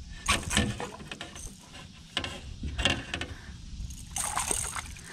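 A fish being reeled in and landed at the side of a small aluminum jon boat: irregular knocks, rattles and splashes, with clicks of the fishing reel.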